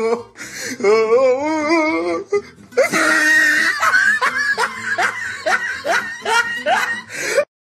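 Hearty laughter in a quick string of bursts, with music underneath; about a second in there is a long wavering, shaky laugh, then from about three seconds the laughter comes in short rising bursts roughly twice a second until it cuts off.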